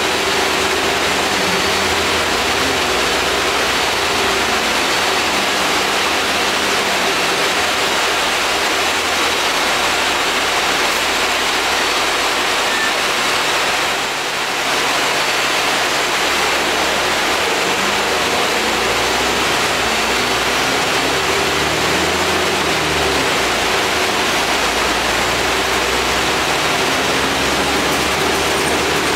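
Inside the lower deck of an Alexander Dennis Enviro 400 double-decker bus under way: the air conditioning's steady rushing hiss, over the low drone of the diesel engine, which shifts in pitch several times. Loudness dips slightly about halfway through.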